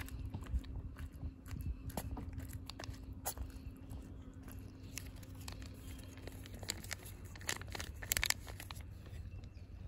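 A cat eating wet cat food from a bowl at close range: irregular wet chewing and smacking clicks. About eight seconds in comes a brief burst of crinkling, the plastic treat tube being handled.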